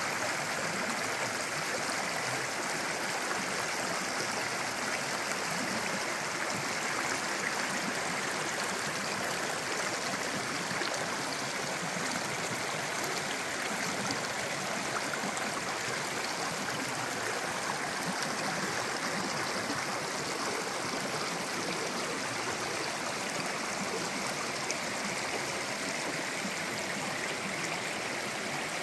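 Stream of water running steadily, an even unbroken rush.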